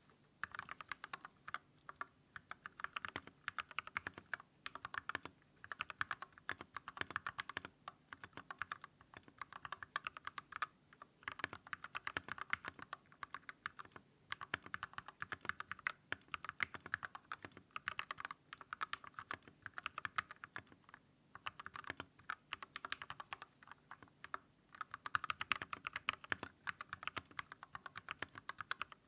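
Continuous fast typing on a custom mechanical keyboard, an Everglide SK87 with lubed Gateron Milky Yellow linear switches and XDA keycaps, on a desk mat. Rapid key clacks come in runs with short pauses between words.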